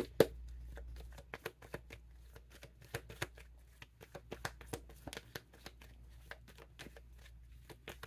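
Tarot cards being shuffled and handled: an irregular run of quick flicks and snaps, with a sharp click at the very start.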